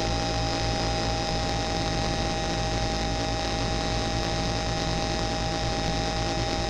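Homemade 40106-based square-wave synths holding a steady drone of several fixed tones over a constant hiss of white noise.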